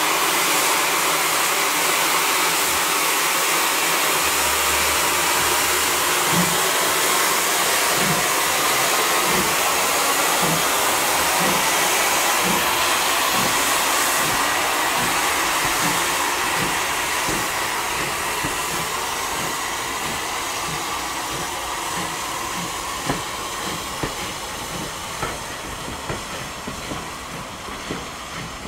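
Ex-LSWR T9 class steam locomotive pulling away with its train: a loud, steady hiss of steam, with low thuds coming quicker as it gathers speed. The hiss fades as the coaches roll past, their wheels clicking over the rail joints near the end.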